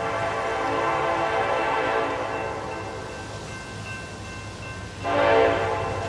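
Diesel freight locomotive air horn sounding one long blast that fades after about three seconds, then a short, louder blast about five seconds in, over a low steady hum.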